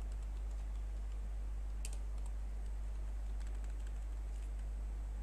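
Computer keyboard being typed on: a few scattered keystrokes, a sharper one about two seconds in and a loose run near four seconds, over a steady low hum.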